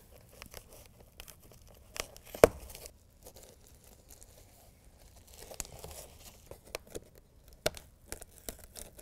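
Small pieces of adhesive-backed hook-and-loop (Velcro) strip being handled, with backing peeled off, light rustling, and scattered small clicks and taps. The sharpest tap comes about two and a half seconds in.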